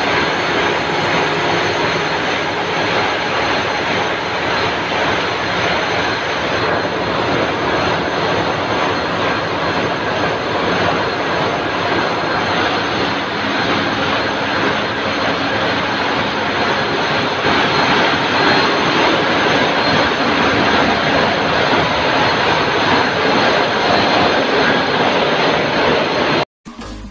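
Loud, steady din of a ship's engine room, its diesel generator engines running. It cuts off abruptly near the end.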